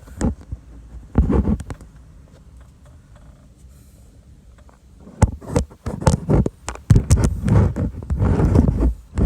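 Handling noise from a phone being moved and set in place: knocks, taps and rubbing close to the microphone. A quieter stretch comes in the middle, then more knocks and scraping.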